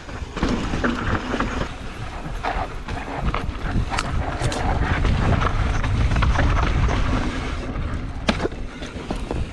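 Mountain bike descending a dirt trail: a steady rush of wind buffeting the mic, with tyres rolling over dirt and the bike rattling. The rumble is strongest in the middle, and there are a few sharp knocks from the bike hitting bumps.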